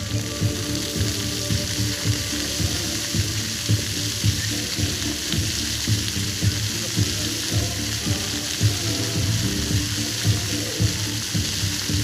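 Water jets of a plaza floor fountain spraying up and splashing back onto wet paving: a steady hiss with a regular low pulsing beneath it.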